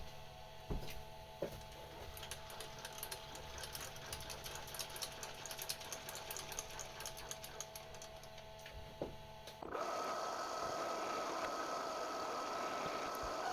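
Metal lathe running steadily with fine rapid scraping ticks, as an edge of a turned mild-steel plate is deburred. About ten seconds in the sound turns louder and noisier with a higher steady whine.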